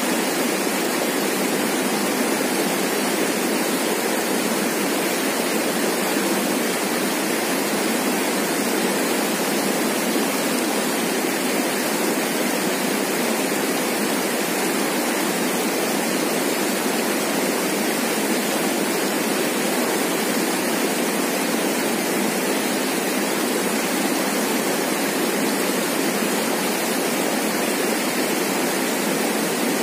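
Fast river current rushing steadily over rocks and shallow rapids, a continuous even wash of whitewater with no breaks.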